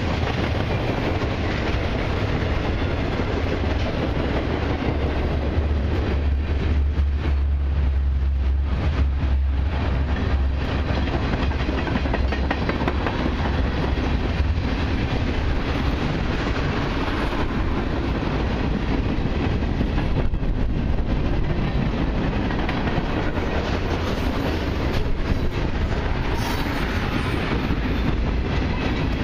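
Freight cars of a long mixed freight train rolling past: a steady rumble of steel wheels on the rails, heaviest in the low end a few seconds in.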